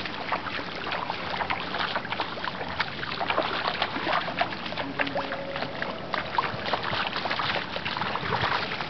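Pool water splashing and lapping around bare feet wading along a shallow pool ledge: a dense, steady patter of small clicks and splashes.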